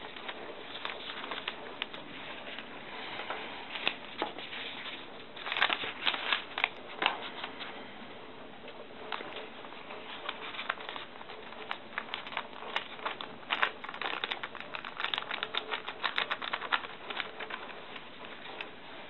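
Thin phonebook paper rustling and crackling as it is folded and creased by hand: irregular small crackles, busiest from about five to seven seconds in and again from about twelve to seventeen seconds, over a steady hiss.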